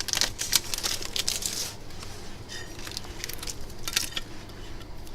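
Thin plastic film crinkling and crackling as it is handled, in a quick run of rustles over the first second and a half and a few separate crackles after.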